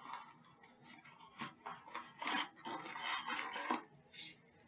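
Rustling and light knocks as cutlery and its packaging are handled, busiest from about two to nearly four seconds in.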